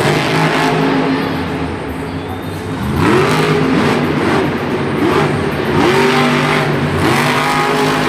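Monster Mutt Dalmatian monster truck's supercharged V8 engine revving hard under full throttle during freestyle stunts. It rises in pitch in repeated surges, about four times.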